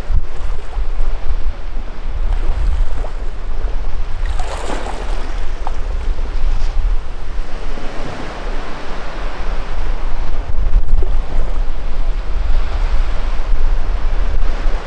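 Sea waves washing against shoreline rocks, swelling in several surges, over a steady low rumble of wind on the microphone.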